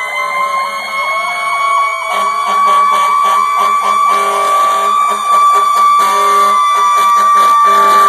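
Several fire-truck sirens sounding at once as the vehicles pass close: a wailing siren rising and holding high, a fast warbling yelp over the first few seconds, and a low horn sounding on and off.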